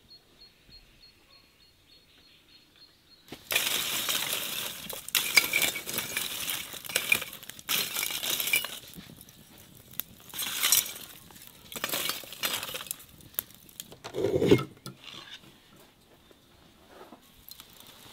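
Glowing charcoal being raked and stirred with a metal poker, starting about three seconds in: the coals clink and crunch against each other and the metal in repeated sharp bursts. There is a heavier thump about fourteen seconds in.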